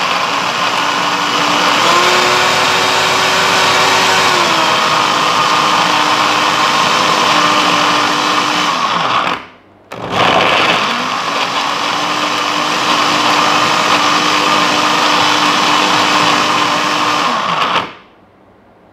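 Electric mixer grinder running, blending dates and milk into a paste. It runs about nine seconds with its pitch briefly rising a couple of seconds in, stops for a moment, then runs again for about eight seconds before it is switched off near the end.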